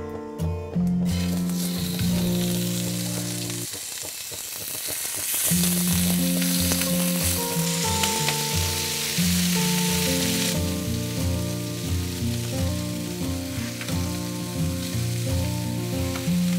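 Boneless chicken thighs sizzling in hot clarified butter in a cast iron skillet as they are laid in to sear; the sizzle starts about a second in, is strongest in the middle and eases off after about ten seconds. Background music with sustained notes plays underneath.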